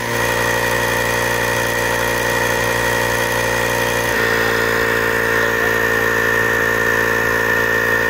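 HART 20V cordless portable tyre inflator running steadily, pumping air into a freshly plugged van tyre from about 16 psi toward 36 psi, with a steady high whine over its motor buzz. Its note shifts slightly about four seconds in.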